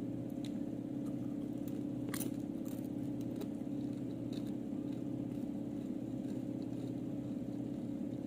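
A person chewing Doritos tortilla chips with the mouth closed, giving a few short crisp crunches, the loudest about two seconds in. A steady low hum runs underneath.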